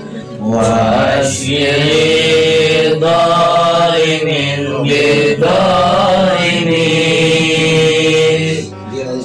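Men's voices chanting Islamic prayers in a drawn-out, melodic way, in phrases of a couple of seconds each with short breaks between them.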